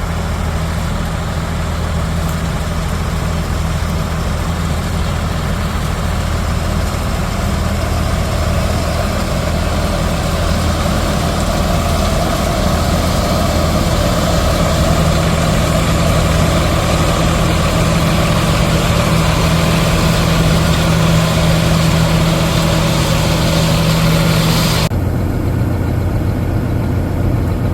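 Diesel engine of heavy harvest machinery running steadily, a deep hum with a rushing mechanical noise over it. The noise builds and then cuts off abruptly near the end, leaving the engine running on.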